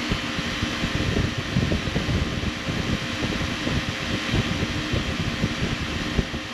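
Rooftop condensing unit running with its newly replaced compressor: a steady condenser fan rush with a low hum, and wind buffeting the microphone in irregular low gusts.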